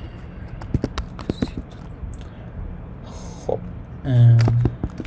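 Scattered keystrokes on a computer keyboard as a line of code is typed. A short, low hummed 'mm' from a person's voice, the loudest sound, comes about four seconds in.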